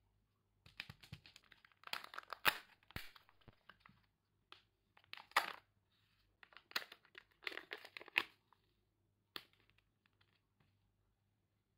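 Peel-off seals being torn from a Kinder Joy egg's plastic half-shells: crinkly tearing in several bursts, then a sharp plastic click and a few light ticks near the end.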